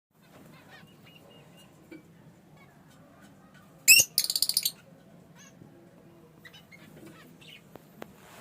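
Fischer's lovebirds chirping softly. About four seconds in, one loud shrill call is followed straight away by a quick run of harsh chattering notes.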